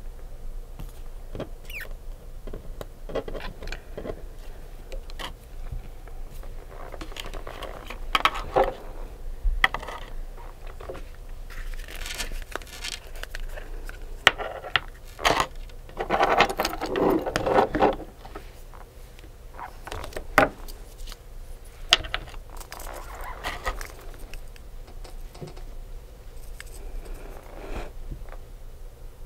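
Nail-art tools and small objects handled during a manicure: scattered sharp clicks and taps with short stretches of scraping and rustling, busiest about halfway through.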